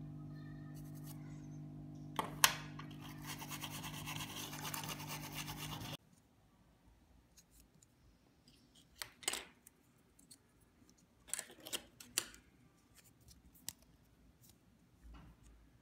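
A toothbrush scrubbing a pen drive's plastic casing in quick, scratchy strokes over a steady low hum, with one sharp click about two seconds in. The scrubbing cuts off abruptly about six seconds in, and a few scattered light clicks and scrapes follow as small tools are handled on a tabletop.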